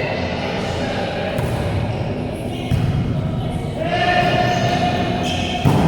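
Volleyball being played in a gym: the ball is struck sharply twice, about three seconds apart, over a steady hubbub of players' voices, with one long call near the end.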